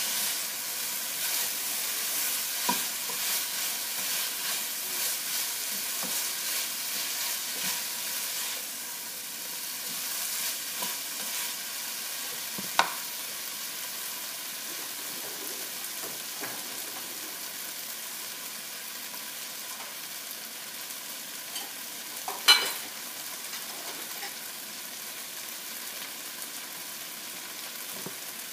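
Chicken pieces, sliced jalapeños and ginger sizzling in a nonstick frying pan. For the first eight seconds or so a spatula stirs them with regular scraping, then the pan sizzles steadily and more quietly. A sharp knock comes about halfway through and a louder one about three quarters of the way in.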